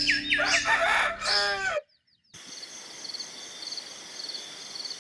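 Chickens and a rooster calling, a quick run of falling chirps and lower crowing calls, which cut off about two seconds in. Then a faint hiss with a high chirp repeating about twice a second.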